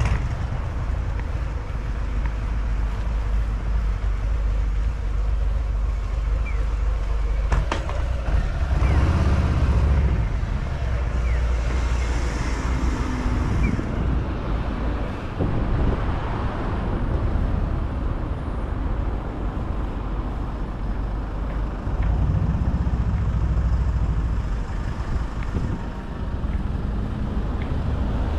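Street traffic: cars and motorbikes passing under a steady low rumble, with louder passes about nine and twenty-two seconds in. There is a short sharp click about seven and a half seconds in.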